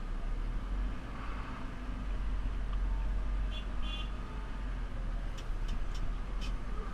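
JCB 3CX backhoe loader's diesel engine running steadily, with a few light clicks near the end.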